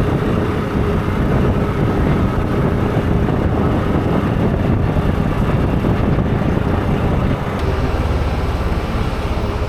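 Steady running noise of a moving vehicle, an engine hum under road and rumble noise, dropping a little in level about seven and a half seconds in.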